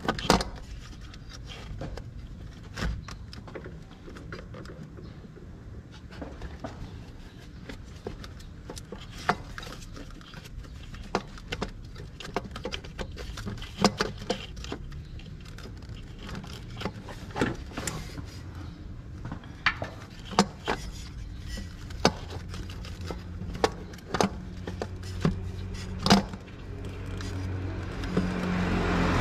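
Hand tools clinking and knocking against metal parts in a run of separate sharp clicks, over a low rumble. A low hum builds near the end.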